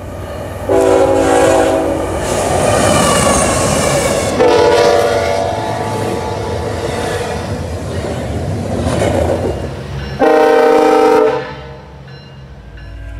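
Locomotive air horn sounding a multi-note chord in three blasts: a short one about a second in, a long one starting about four seconds in that slowly fades, and another short one near ten seconds, over the rumble and clatter of the moving train.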